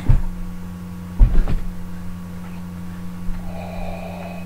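Dull thumps and rustling as bodies and a cloak knock against the webcam, one thump right at the start and a louder one about a second in, under a steady low electrical hum from the webcam. A faint breathy noise comes near the end.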